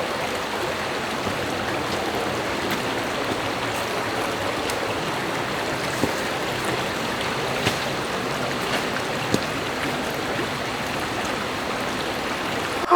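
Small river flowing: a steady rush of running water, with a few faint ticks.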